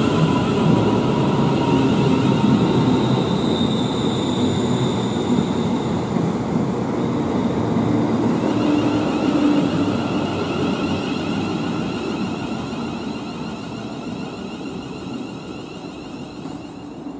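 A train running on the line: a steady rumble with thin high tones over it, fading gradually through the second half as it moves away.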